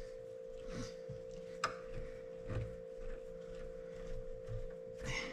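Faint clicks and scrapes of a screwdriver working screws and fittings in a metal fuse box, with one sharper click about a second and a half in, over a steady hum.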